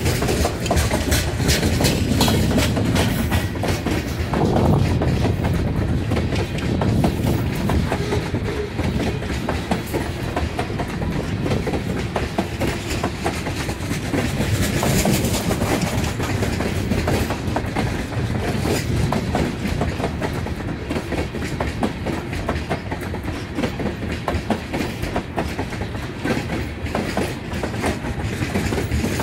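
Freight train of open-top hopper cars rolling past: a steady rumble with the wheels clicking over the rail joints, a continuous clickety-clack.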